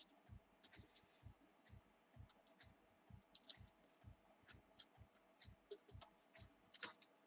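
Faint, irregular clicking and light tapping from a small screwdriver, screws and plastic laptop parts being handled during disassembly, a few clicks a second, with one sharper click about halfway through.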